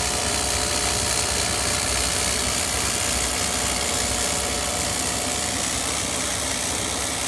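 Corn snack extruder running steadily: a constant machine hum with a few steady tones over an even hiss.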